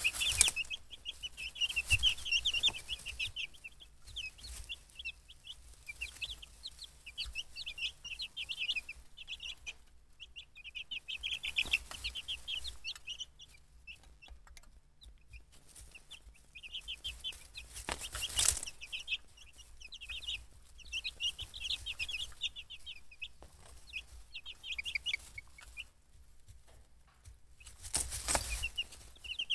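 A brood of young chicks peeping constantly in a rapid, high chatter. A few brief, louder rustles break in: about two seconds in, around twelve and eighteen seconds, and near the end.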